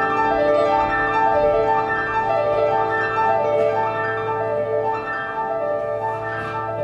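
Solo piano playing flowing, rippling runs of notes that rise and fall over and over at an even pace.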